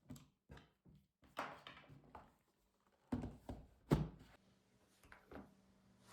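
Laptop hardware being handled: a series of light clicks and knocks, with the loudest knocks about three and four seconds in, followed by a faint steady hum.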